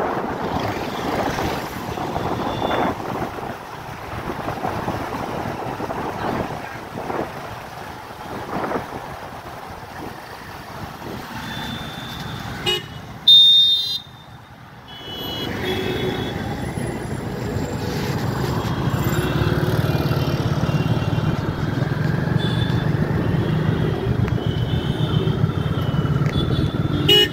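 Road traffic heard from a moving motorbike: wind and engine noise, with a loud vehicle horn honking about halfway through. After a short lull a steady low engine drone carries on to the end.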